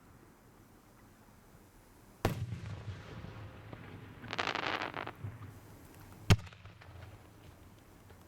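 Fireworks: a shell bursts about two seconds in with a rolling rumble, a spell of dense crackling follows, and a sharper, louder single bang comes a little later.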